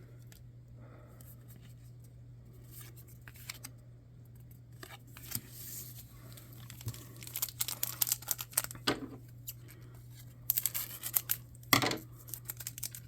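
Trading cards and their packaging being handled: scattered rustling, crinkling and tearing that grows busier in the second half, with two sharper snaps about nine and twelve seconds in, over a low steady hum.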